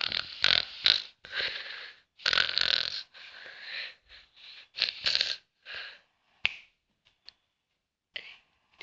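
A sleeping man snoring loudly in irregular, noisy snores and snorts. Several short loud ones come in the first second, longer ones follow, and after about four seconds they turn shorter and fainter.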